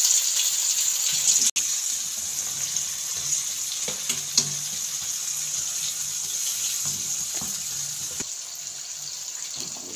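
Flour-dusted potato chips deep-frying in very hot oil in a kadai: a steady sizzle that slowly gets a little quieter. A wire skimmer stirring the chips makes a few light clicks about four seconds in.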